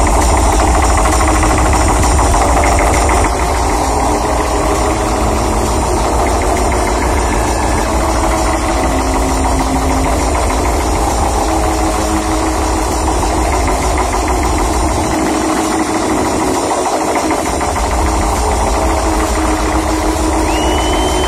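Techno music playing loud and dense under a heavy bass line. The deep bass drops out for about two seconds in the second half, then comes back in.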